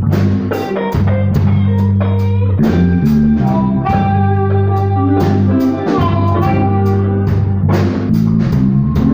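Blues band playing an instrumental passage between sung lines: electric guitar playing bent lead lines over bass and a steady drum kit beat.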